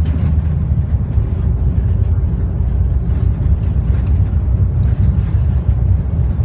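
Cummins ISL straight-six diesel engine of a Bustech ADi bus running steadily under way, heard inside the passenger cabin together with road noise.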